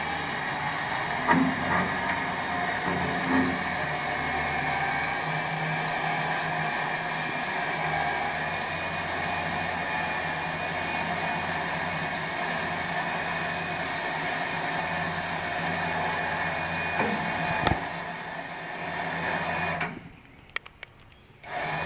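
Motor of a homemade hitch-mounted motorcycle loader running steadily as it hauls a heavy touring motorcycle up the tilting track, with a few knocks from the mechanism. The motor stops suddenly near the end, leaving a moment of near silence with a few clicks, then starts again.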